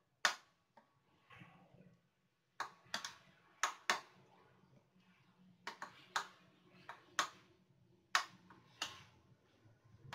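Metal spoon clinking and knocking against a ceramic bowl, in a dozen or so irregular strikes, while stirring flour and starch into a dough batter.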